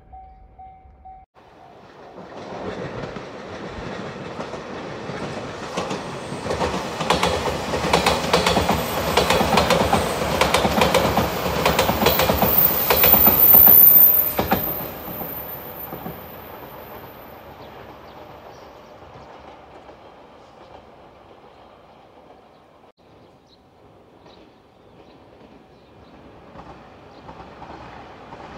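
A railway level-crossing bell rings briefly, then a five-car Shiokaze electric limited express train approaches and passes close by. Its wheels clack over the rail joints, with a thin high squeal as it is loudest about 14 seconds in, and the sound fades away. Near the end another train starts to come in from a distance.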